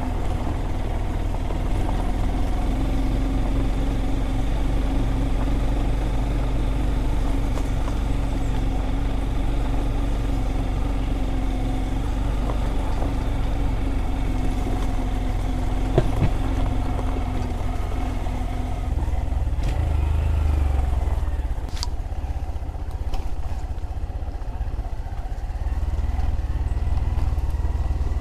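Small Honda motorcycle engine running steadily under way, with wind rumbling on the microphone. A single sharp knock about sixteen seconds in, and the engine note shifts a few seconds later.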